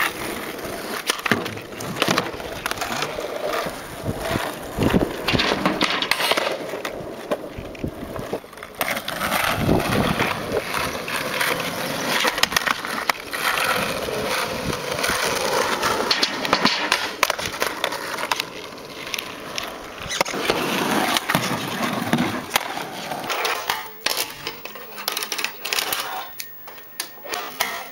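Skateboard wheels rolling over rough asphalt, with repeated clacks of the board's tail and deck snapping and landing as tricks are tried. Near the end, sparser small sharp clicks of a fingerboard tapping on a plastic ramp.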